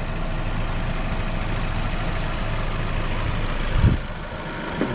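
A vacuum cleaner running steadily off a power inverter wired to an idling car's battery. About four seconds in there is a low knock, and the sound drops for about a second before rising again at the end, as the vacuum is switched off and back on to draw its inrush current.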